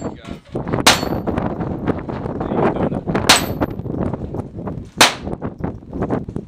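Three centre-fire handgun shots, each a sharp crack, about one, three and five seconds in.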